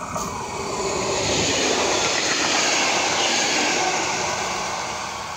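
A train passing along the line, its rolling noise swelling to a peak about halfway through and then fading.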